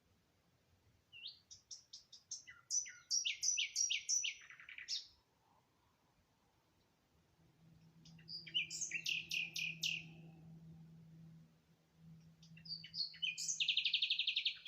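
A songbird singing three short phrases, each a quick run of high chirping notes lasting two to four seconds: about a second in, at eight seconds, and near the end, where the last phrase finishes in a fast trill.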